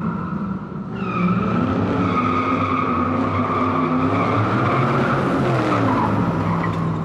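Tire-squeal sound effect: car tires screeching in one long, steady squeal over a running engine, as in a burnout, with the engine's pitch dropping near the end.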